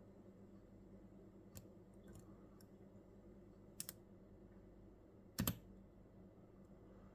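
Small metallic clicks from a lock pick working the pins of a 6-pin CES euro cylinder: a few faint ticks, a quick double click near four seconds and a louder double click about five and a half seconds in, over a low background hum.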